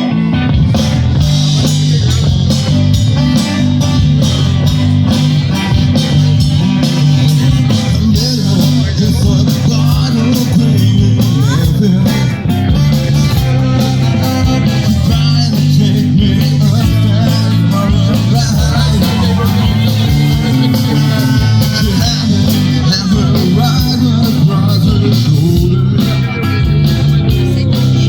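Live band playing a loud blues-rock song, led by electric guitar.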